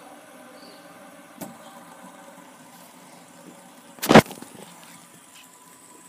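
Handling knocks on a tabletop while fidget spinners are stacked and spun: a light click about a second and a half in, then one loud sharp knock about four seconds in.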